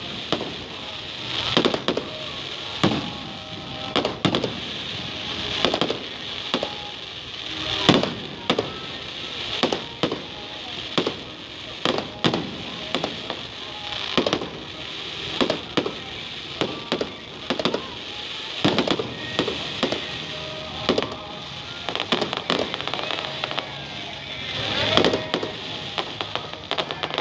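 Fireworks display: aerial shells and fountains going off in quick succession, a steady run of sharp bangs, at times several a second, over a continuous hiss. A louder, denser cluster of bursts comes near the end.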